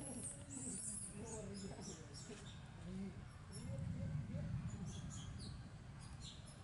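Faint animal chirps and short squeaky calls scattered through the moment, with a few soft gliding calls over a low steady background murmur.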